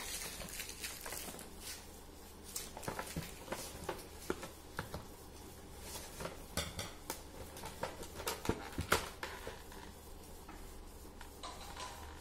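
Irregular light clicks and taps, some sharper than others, over a steady low hum.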